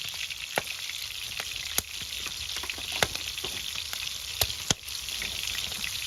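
Wood fire crackling: a steady hiss with sharp pops every second or so.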